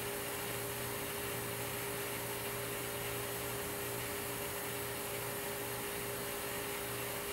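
Powered-on, idle home-built CNC router giving off a steady electrical hum over a faint hiss.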